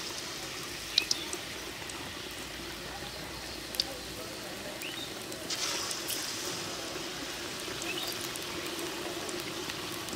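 Batter-coated eggplant slices (beguni) sizzling as they deep-fry in hot oil in a karahi, with scattered sharp pops. The sizzle swells about five and a half seconds in as another battered slice goes into the oil.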